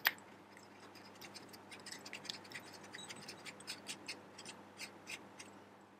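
Faint, irregular ticking and scratching of a dial indicator's threaded extension being screwed by hand into the spark plug hole of a kart engine's cylinder head, with a sharper click at the start.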